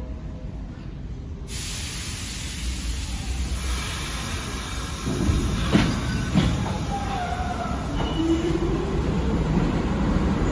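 R46 subway train pulling out of the station, its low rumble growing louder. A few sharp clanks come from the wheels and rails about halfway through, then short squeals and a rising whine as it picks up speed.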